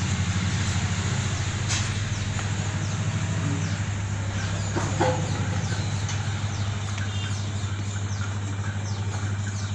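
Steady low hum, like a motor or engine running, under faint, short scratches of chalk writing on a blackboard.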